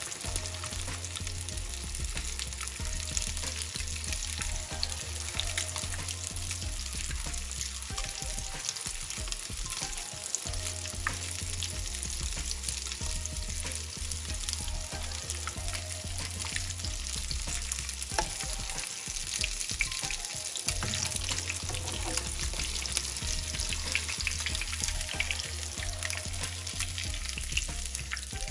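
Breadcrumbed plaice fillet shallow-frying in hot oil in a frying pan: a steady sizzle dotted with small crackling pops.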